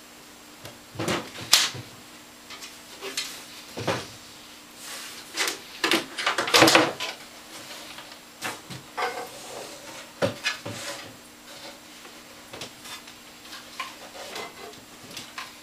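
Knocks, clunks and clicks from a Kaypro II portable computer being handled: its metal case is set down on a desk and its clip-on keyboard lid is taken off and placed in front of it. The loudest run of knocks comes about six seconds in, followed by lighter scattered clicks.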